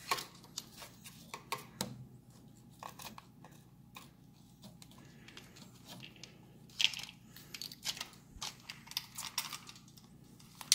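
Faint, irregular clicks, taps and rustling of hands working small metal parts and a cable at the motorcycle's carburetors, with a busier flurry of clicks about seven seconds in.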